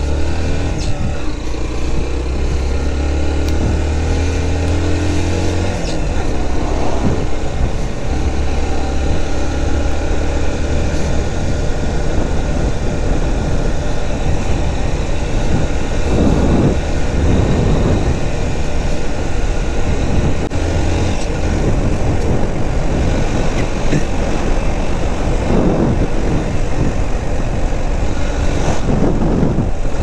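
Motorcycle engine running under way over a steady rush of wind and road noise. The engine note climbs during the first few seconds and changes about six seconds in.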